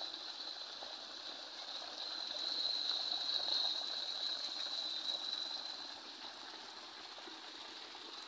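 Water gushing from a pipe into a concrete irrigation tank and spilling out through an outlet onto the ground, a steady rushing splash. It grows louder a couple of seconds in and fades down after about six seconds.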